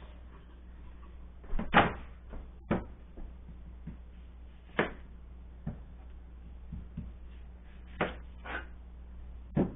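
Irregular knocks and clunks of kitchen handling as a plastic cutting board is set down on the counter and worked on, about seven separate hits spread unevenly, the loudest about two seconds in.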